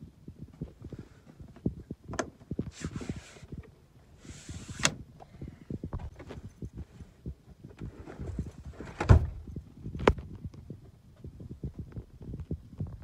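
Irregular knocks and handling bumps as things are moved about inside a van, with two short hissing rustles a few seconds in. A loud thump comes about nine seconds in and a lighter one a second later.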